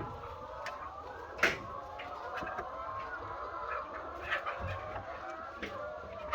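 A large flock of laying hens clucking steadily, many overlapping calls at once, with a few short sharp sounds; the loudest is about one and a half seconds in.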